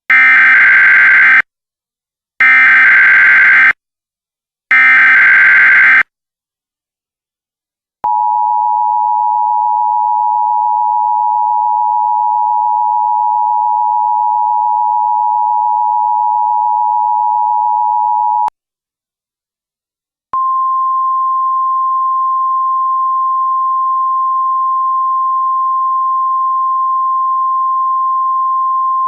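Emergency Alert System signal. Three short bursts of SAME header data warble come first, then the two-tone attention signal holds steady for about ten seconds. After a brief gap comes a single steady weather-radio alert tone.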